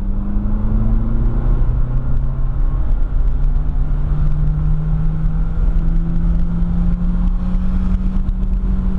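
Car engine heard from inside the cabin, accelerating along the track. Its note climbs slowly and steadily for most of the time, over wind and road noise.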